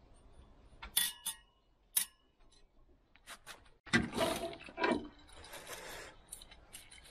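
Two sharp metallic clinks, about a second apart, each with a brief ring, from the stainless steel folding grill being handled. From about four seconds in, loud scraping and rustling as wood ash is scraped off the fire table and tipped away, fading to a lighter rustle.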